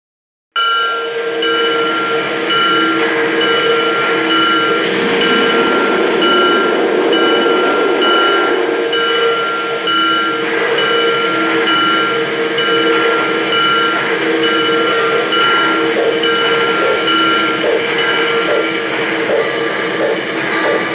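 O-gauge model freight train running on the layout: a model steam locomotive and its cars rolling on track, with a steady sound full of tones and a regular pulse. The sound starts abruptly just under a second in.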